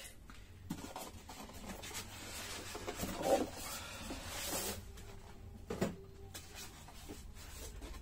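Handling noises from work on a car: scattered clicks and rubbing, a longer scraping stretch through the middle, and one sharp knock near the end.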